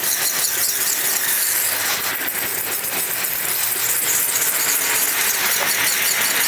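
Dull kitchen knife sharpened on a Naniwa Chosera 400-grit coarse whetstone: a continuous hissing rasp of steel scraping back and forth over the stone, with faint stroke-by-stroke scratches, as a micro bevel is raised on the edge.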